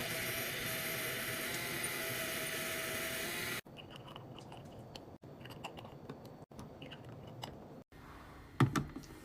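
Restocking sounds: a steady hiss for the first few seconds, then small clicks and taps of items being handled and set down, with a sharp knock near the end.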